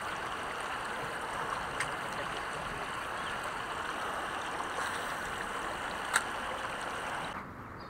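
Steady hiss of running water, with a sharp click about six seconds in; the hiss cuts off suddenly near the end.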